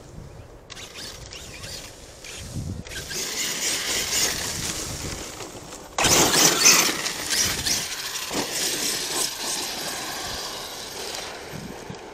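Arrma Kraton 8S battery-powered RC monster truck running, its motor and tyres on dirt and grass. It grows louder about three seconds in, then a sudden loud rush of noise comes about six seconds in and fades away over the next several seconds.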